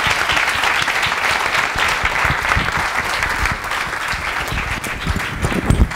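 Audience applauding, many hands clapping at once and dying down gradually toward the end, with a low thump near the end.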